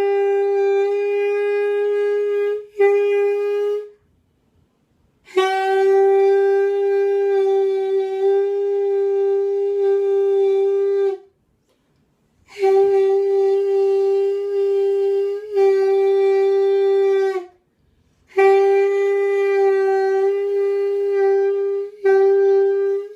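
Single-reed mouthpiece with reed and ligature blown on its own, without the instrument: four long, steady held notes at the same pitch, each a few seconds long with short breaks between. This is an attempt to pitch a G sharp on the mouthpiece alone.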